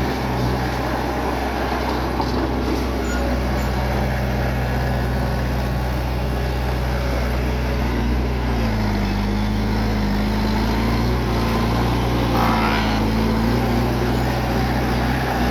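Bulldozer's diesel engine running steadily, with its pitch dipping and wavering about halfway through.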